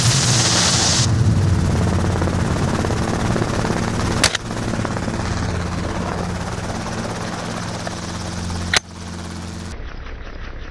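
Helicopter engine and rotor running steadily, with two gunshots about four and a half seconds apart, the first about four seconds in and the second near nine seconds. There is a burst of hiss in the first second, and just before the end the helicopter sound cuts away to a much quieter background.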